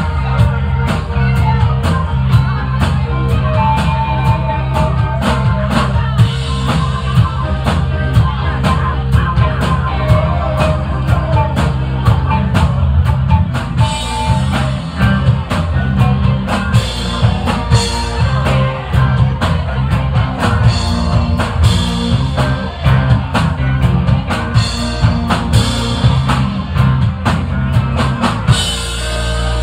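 Live rock band playing: electric guitars over a drum kit and bass with a steady, dense drum beat. The drums drop out about a second before the end, leaving held guitar and bass notes.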